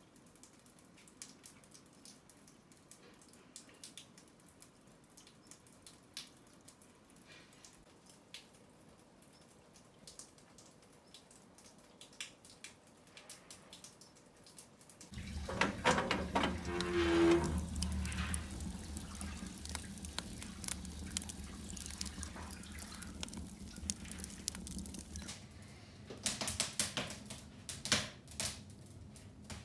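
Faint rain dripping: single drops ticking at irregular intervals. About halfway through, a low steady hum sets in, with more frequent clicks and ticks over it.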